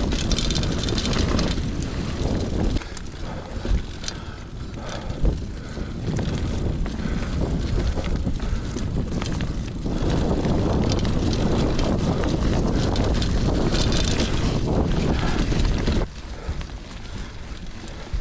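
Riding a Trek Marlin 7 mountain bike along a dirt trail: wind rushing over the microphone, with the tyres running over the ground and the bike rattling. The noise is louder for several seconds in the second half, then drops off suddenly near the end.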